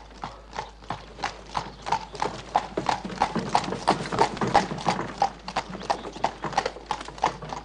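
Horse's shod hooves clip-clopping on a paved road as it pulls a two-wheeled cart, a steady beat of about three hoofbeats a second that grows louder toward the middle and then fades a little.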